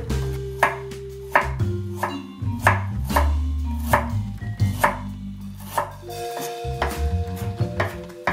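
Chef's knife chopping on a wooden cutting board, first through green onion and then slicing ginger, with sharp knocks at an uneven pace of about two a second. Background music plays underneath.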